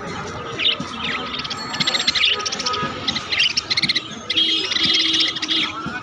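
Budgerigars chattering in quick runs of high chirps and warbles, with short pauses between the runs.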